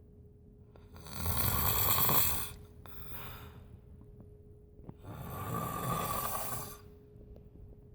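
A person snoring: a long snore about a second in, a shorter, softer breath just after it, and another long snore about five seconds in. A faint steady hum runs underneath.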